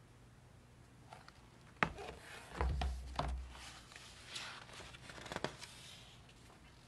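A hardcover picture book being lowered and its paper pages flipped through by hand: rustling pages with several sharp knocks and a short low thud of handling, the sharpest knock about two seconds in.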